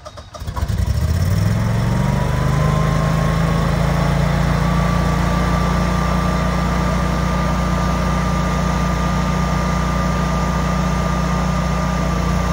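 Generac home standby generator running just after its automatic start: the engine comes up to speed over the first second or two, then runs steadily through its warm-up. A thin whine rises over the next few seconds and then holds steady.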